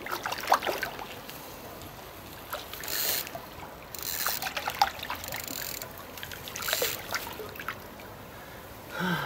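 A hooked nase splashing and thrashing at the water's surface as it is drawn in to the bank, in irregular short splashes a few seconds apart.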